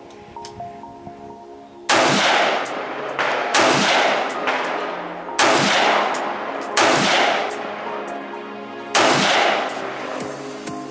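Semi-automatic rifle fired about six times at irregular intervals, each loud shot followed by a long echo. Background music plays under the shots.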